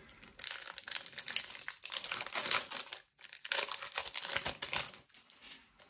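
Foil wrapper of a Pokémon TCG booster pack crinkling as it is handled and opened, in two spells of crackling with a short pause about three seconds in.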